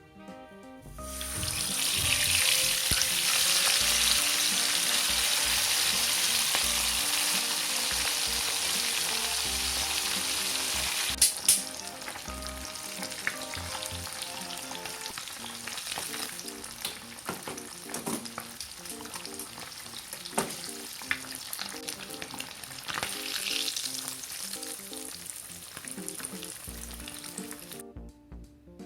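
Food sizzling in hot oil in a frying pan, loud at first and then settling to a softer sizzle. A couple of sharp knocks come partway through, and scattered clicks follow from a utensil stirring in the pan. The sizzle stops abruptly near the end.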